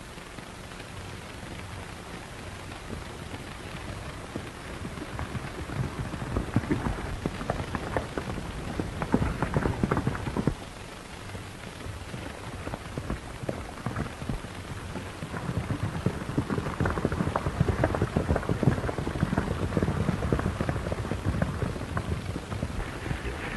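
Horse hooves galloping on dirt: a dense, fast clatter of hoofbeats over a steady hiss. It grows louder until about ten seconds in, drops off suddenly, then builds again and stays loud until near the end.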